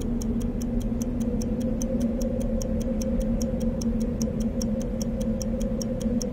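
Steady clock-like ticking, about four ticks a second, over a sustained low drone: a ticking-clock motif in the film's background score.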